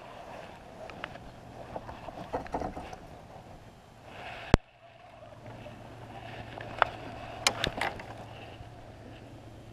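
Clicks and taps from fishing gear being handled: a spinning reel on the rod and tackle being worked by hand. There is one sharp click about four and a half seconds in and a quick run of clicks near the end, over a steady low hum.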